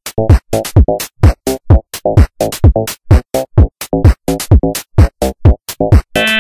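Electronic background music with a drum-machine beat: deep kick drums that drop quickly in pitch, mixed with sharp, chopped percussion hits.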